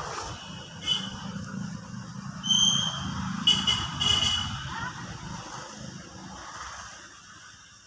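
A motor vehicle's low engine rumble that fades away near the end, with a few short high-pitched squeals in the middle.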